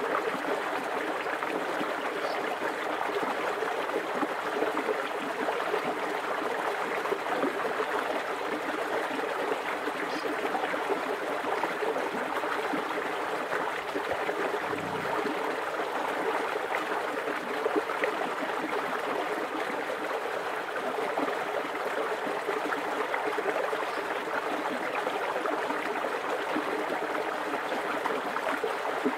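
Small creek's water running steadily, close to the microphone.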